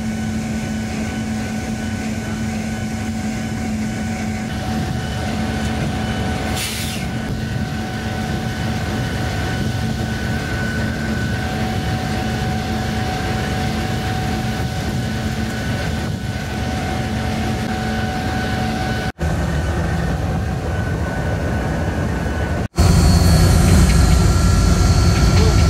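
Diesel locomotive running and rolling along the rails, heard from on board the locomotive: a steady drone with a few steady hum tones. The sound drops out twice for an instant near the end and is louder for the last few seconds.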